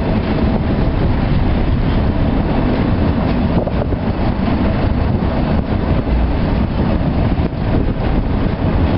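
Freight train of flat wagons loaded with military trucks rolling past: a steady rumble of wheels on the rails, with wind buffeting the microphone.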